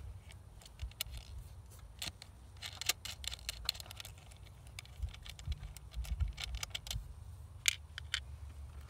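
Small metal clicks and clinks of a nut and washer being handled and worked on a car-type battery terminal stud. The clicks come in a quick cluster a couple of seconds in, with one sharp click near the end, over a low steady rumble.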